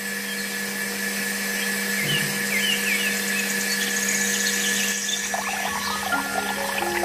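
Miniature battery-powered DC-motor water pump running with a steady, even whine, its water stream splashing into a small pot.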